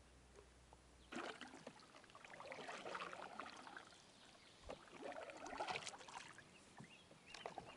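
Faint canoe paddle strokes in calm water, starting about a second in: the paddle blade dipping and pulling, twice, with water trickling and dripping off the blade between strokes.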